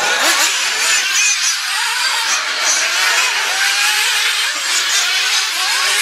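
Several 1/8-scale nitro RC buggy engines racing, their high-pitched buzz rising and falling as they rev up and back off through the track.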